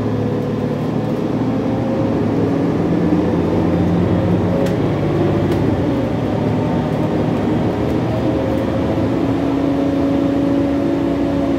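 Inside a city transit bus on the move: steady engine drone and road noise, the engine note drifting slightly up and down, with a couple of faint rattling ticks about halfway through.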